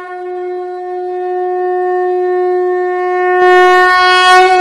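Conch shell (shankh) blown in one long, steady note that swells louder and brighter about three and a half seconds in.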